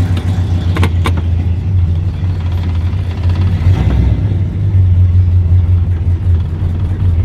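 1968 Buick Wildcat's 430 cubic-inch V8 running steadily with the car under way, still cold after sitting about a year. Two short clicks come about a second in.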